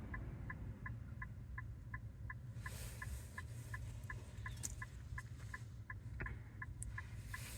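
A car's hazard flashers ticking steadily, about three short ticks a second, with faint rustling over it.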